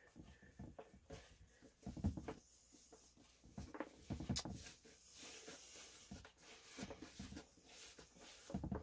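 Hands rounding and pressing a ball of sticky soda bread dough on a floured wooden table: faint scattered soft thumps and rubbing, with one sharp tap about four seconds in.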